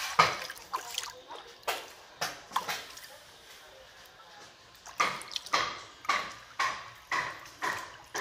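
Shallow water ponded on a concrete rooftop ledge for a flood test, splashing in a series of short splashes, about two a second in the second half.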